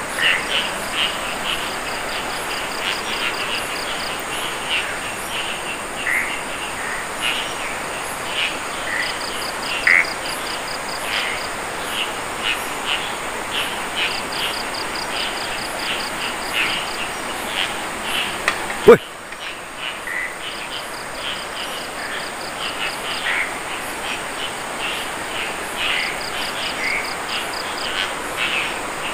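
Night chorus of crickets and frogs: a steady high insect drone, short cricket trills repeating every few seconds, and frequent short frog calls. A single sharp knock comes about two-thirds of the way through.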